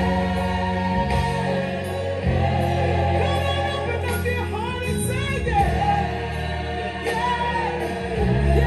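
Recorded gospel song playing: a steady bass line and held chords, with singing voices gliding through drawn-out vocal runs over it.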